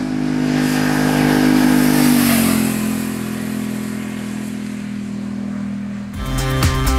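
Ducati Multistrada Enduro's L-twin engine passing by at a steady speed: its note drops in pitch as the bike goes past, a little over two seconds in, then fades away. Music comes in near the end.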